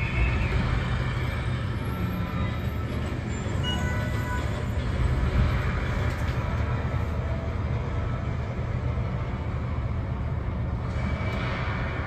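Steady low rumble and rushing of a high-speed elevator cab climbing its shaft, heard from inside the car, with a few faint short tones over it.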